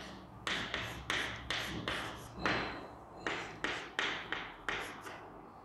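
Chalk tapping and scraping on a chalkboard as letters are written: a quick run of short strokes, about two or three a second, each starting sharply and fading.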